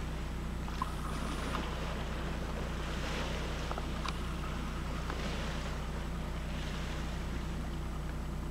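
Steady low hum under a light wash of wind and water, with a few faint clicks.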